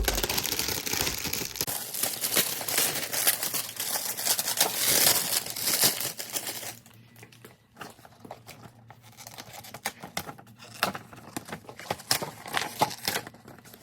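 Packaging being torn open and crinkled by hand for about seven seconds, then quieter scattered rustling and handling of the contents.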